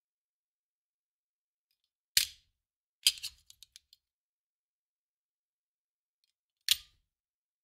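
Handgun magazine thrown down, landing with a sharp clack three times: about two seconds in, again a second later with three small bouncing rattles, and once more near the end.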